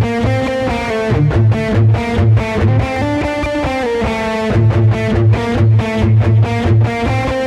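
Instrumental intro of a gothic rock song: an electric guitar with effects plays a picked, repeating riff over a regular low pulse.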